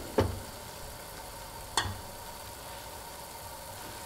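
A metal spoon knocks twice against the pan while stirring: once just after the start and again near the two-second mark. Under it, soup broth with shiitake mushrooms boils steadily in the pan.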